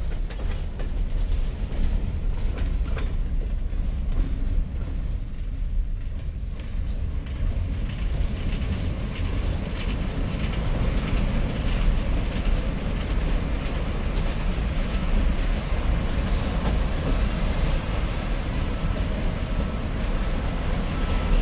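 The tail end of a freight train's hopper cars rolling past and fading away down the line, over a steady low rumble of wind on the microphone.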